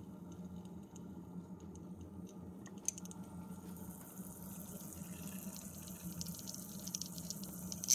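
Coolant trickling and gurgling in the open expansion tank of a BMW N20 engine as the electric coolant pump circulates it during the cooling-system bleed procedure. The sound grows from about three seconds in, after a brief click, over a steady low hum.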